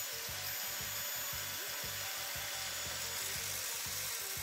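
Small abrasive cutting disc on a handheld power tool grinding into thin sheet steel, running steadily with a high, even whine, to widen a hole in a steel server case.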